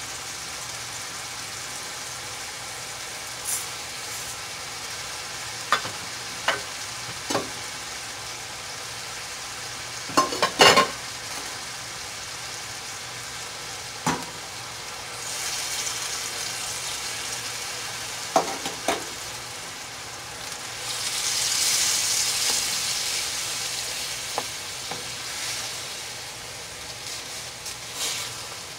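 Ground beef and green bell peppers sizzling in a stainless steel pan, with scattered knocks and clicks of containers and utensils as rice, seasonings and diced tomatoes go in; the loudest clatter comes about ten seconds in. The sizzle swells twice in the second half.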